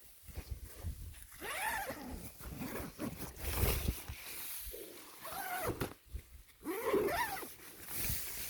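An animal calling three times, each call about a second long and rising then falling in pitch, with low rumbling noise between the calls.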